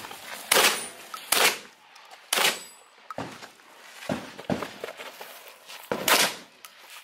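Shotgun shots: three loud cracks about a second apart, then a pause filled with lighter knocks, then a fourth shot near the end.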